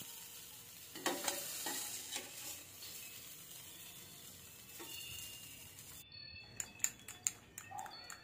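Spoon stirring an egg-and-flour batter in a bowl: faint scraping and light clinks over a steady hiss, with a quick run of sharper clicks and knocks near the end.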